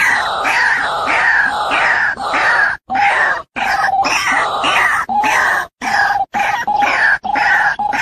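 White-breasted waterhen's 'ruak-ruak' call repeated over and over, about two notes a second, as a recording played to lure the birds into a trap. The recording cuts out abruptly to silence several times, a few tenths of a second each.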